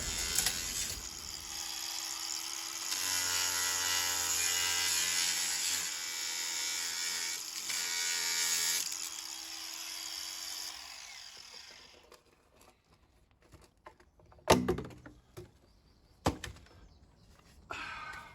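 Power tool running as it cuts a marked length of plastic drain pipe, then winding down about eleven seconds in. Two sharp knocks follow in the quiet.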